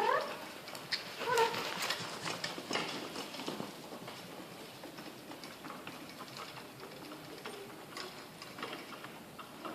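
A mini Shetland pony trotting while pulling a cart: a steady run of light, irregular clicks and clatters from hooves and cart. There is a short pitched call about a second in.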